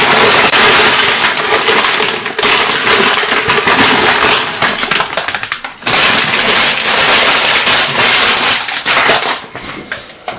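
Crinkle-cut potato crisps pouring from a plastic bag into a stainless steel bowl, rattling and crackling against the metal and each other along with the bag's crinkle. There is a short break about six seconds in, then more pouring that dies away near the end.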